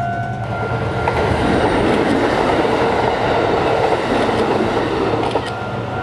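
Kintetsu electric train running along the platform track, a rumble of wheels on rails that builds about a second in and eases near the end. A steady tone stops just after the start.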